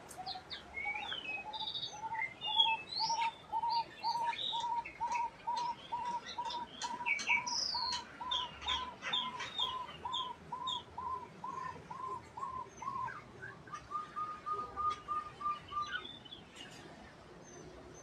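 Several aviary birds calling: high chirps and twitters over one bird repeating a short, even note about twice a second. Near the end of that series the note breaks into a quicker run that stops about two seconds later.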